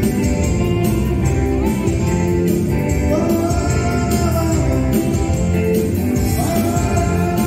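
Keyboard-played dance music in the soltinho rhythm, with a steady beat and singing.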